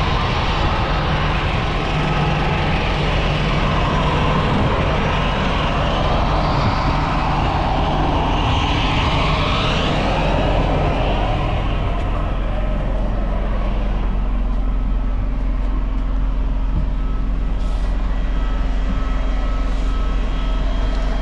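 Loud, steady engine noise on an airport apron: a wide hiss of aircraft engines over the first half, fading about halfway through to the steady low drone of the idling apron shuttle bus engine.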